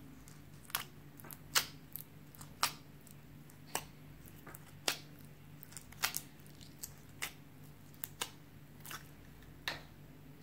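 Slime being pressed and stretched by hand, giving sharp, sticky clicks and pops at an irregular pace, about one or two a second.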